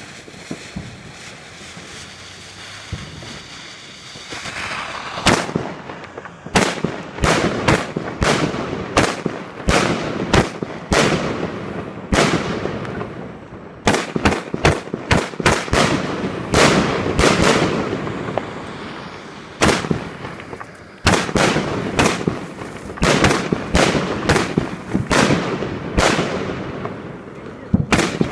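Evolution Fireworks 'The Golden Age' 160-shot cake firing: a low hiss for the first few seconds, then a rapid, uneven run of sharp shots and bursts with crackling between them, broken by two brief lulls.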